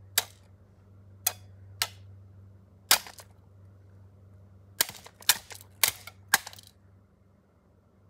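A bat whacking a small plastic ceiling fan: sharp cracks, four spread over the first three seconds, then a quick run of four or five between about five and six and a half seconds in.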